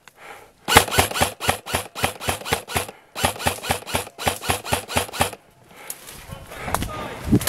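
Upgraded G&G Combat Machine airsoft electric gun firing a quick string of shots, about six or seven a second, in two runs split by a brief pause about three seconds in.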